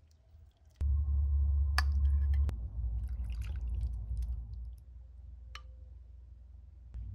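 Soup ladled into a bowl: liquid splashing and dripping, with a few sharp clicks. Under it is a low rumble that starts suddenly about a second in, loudest for the first second and a half, then quieter.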